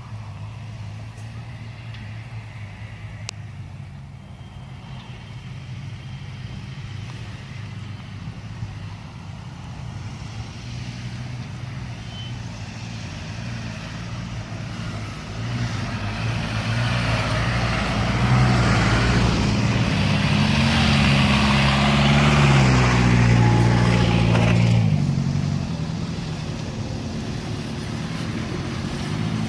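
Off-road 4x4 vehicles driving by, engines running; one passes close a little past halfway, its engine loudest for several seconds with the pitch rising and falling, then fading as it moves off.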